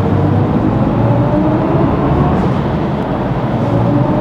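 BMW i4 eDrive40's synthesized electric driving sound in Sport mode: a thin tone rising slowly in pitch as the car gathers speed, starting low again near the end, over steady road and tyre noise in a tunnel.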